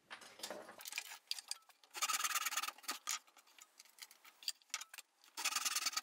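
Back saw cutting through a 15 mm hardwood dowel held on a bench hook: two short bursts of quick rasping strokes, about two seconds in and again near the end, with light clicks and knocks of the wood being handled between them.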